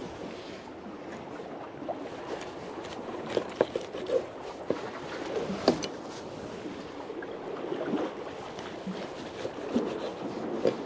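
Irregular knife taps and knocks with wet handling sounds as mackerel are cut up and cleaned by hand on a pier rail, over a steady background wash of water and wind.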